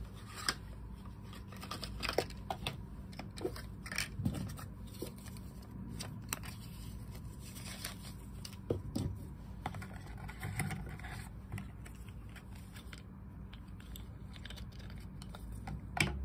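Cardboard box inserts and paper leaflets being handled and lifted out: irregular rustling, scraping and light clicks and taps, with a sharper click near the end.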